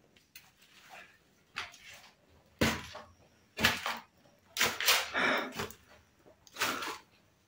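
Footsteps climbing concrete stairs strewn with dry leaves and debris and crossing onto a landing: short, irregular scuffs, roughly one a second, with a longer run of shuffling a little past the middle.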